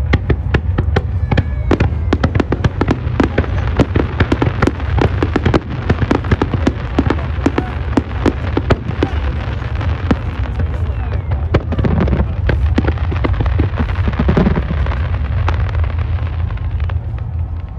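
Fireworks display: rapid, continuous crackling and popping of many bursts, several a second, over a steady deep rumble.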